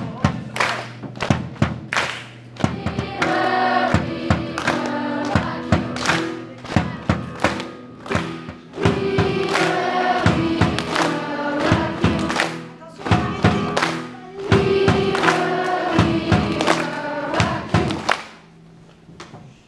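Large children's choir singing in three phrases with keyboard accompaniment, over a steady beat of sharp hits about twice a second; the music stops near the end.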